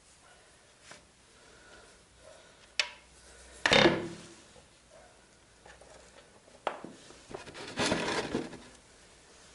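Hand-tool handling as a socket wrench is taken off a motorcycle engine's oil strainer plug and the plug is turned out by hand. There are a few sharp metallic clicks and two louder scraping rubs, about four and eight seconds in.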